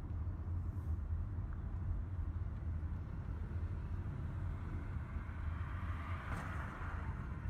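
Car driving on a city road: a steady low rumble of engine and tyres, with a hiss that swells briefly about six seconds in.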